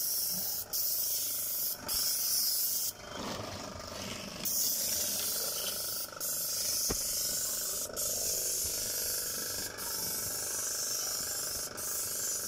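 Airless paint spray gun hissing steadily as it sprays paint. The hiss breaks off for a moment every couple of seconds, with a longer pause about three seconds in.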